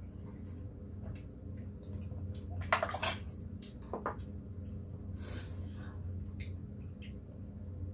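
Metal spoons and chopsticks clinking against a soup pot and bowls at a meal. Scattered light clicks, with a few sharper ringing clinks about three seconds in, over a steady low hum.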